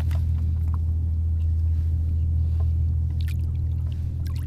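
Steady low rumble of wind buffeting the microphone on open water, with a few faint light knocks near the end as the black sea bass is handled in the kayak.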